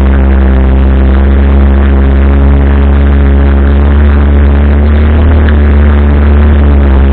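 Arora Herkul 200 ATV's air-cooled single-cylinder four-stroke engine running at a steady speed, a loud even drone.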